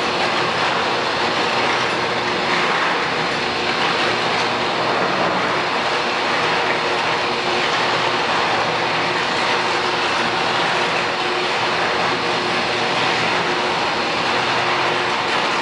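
Steady industrial noise of a steel foundry while molten steel pours from a teapot-spout ladle into moulds: an even rushing noise with a faint steady hum running through it.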